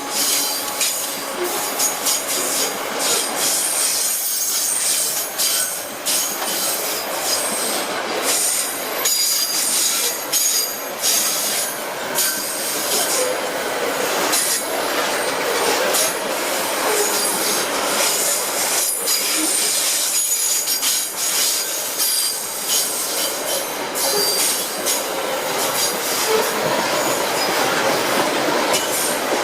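Freight train wagons rolling past on the rails, with a steady clatter of many clicks and knocks from the wheels and intermittent high squeal of steel wheels against the rails.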